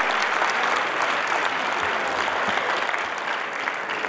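Crowd applauding, the clapping thinning out near the end.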